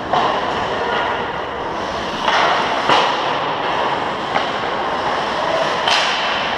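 Ice hockey play on a rink: a steady scrape and hiss of skates on the ice, with a few sharp clacks of sticks and puck.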